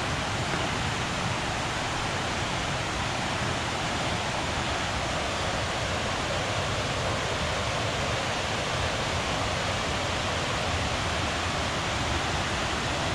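Steady rush of a creek swollen by tropical-storm rain, pouring over a waterfall in heavy whitewater.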